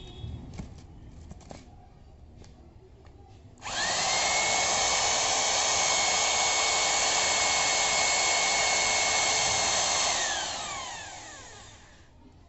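DeWalt D25133K 800 W rotary hammer running in drill-only mode: the motor switches on about four seconds in and runs at a steady pitch for about six seconds, then is released and winds down with a falling pitch.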